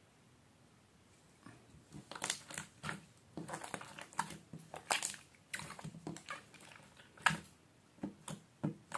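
Soft slime being squeezed and kneaded by hand: irregular squishing with sharp crackles and pops, starting about a second and a half in.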